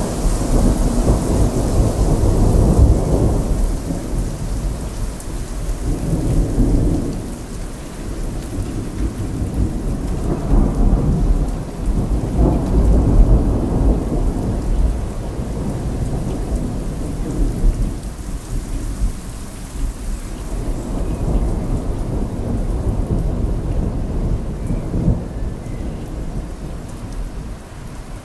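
Thunderstorm: steady heavy rain with several long rolls of rumbling thunder, loudest in the first few seconds and again near the middle.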